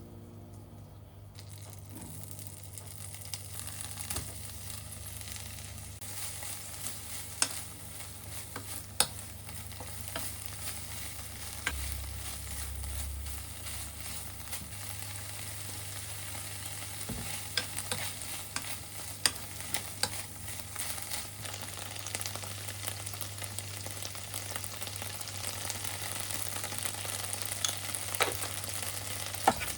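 Broccoli and corn stir-frying in a pan: a steady sizzle that builds over the first couple of seconds, with scattered clicks and taps as the food is stirred.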